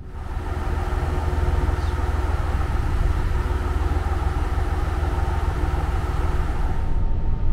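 Steady running noise of a moving vehicle: a strong low rumble with a steady hum over it and a hiss that drops away about seven seconds in.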